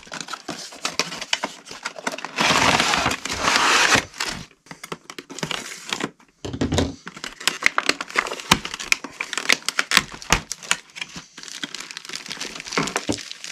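Plastic packaging bag crinkling and crackling as a boxed model train passenger car in its foam cradle is handled and slid out of its cardboard box. There is a louder sliding rasp about two and a half seconds in and a soft thump at about six and a half seconds.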